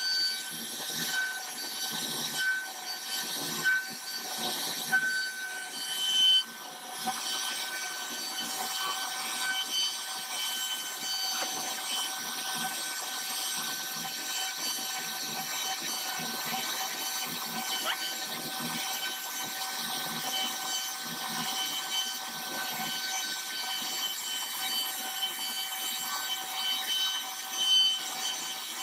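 CNC router spindle running at a steady high whine while its bit cuts into khat wood, with a rough, uneven cutting noise underneath and a few brief louder swells.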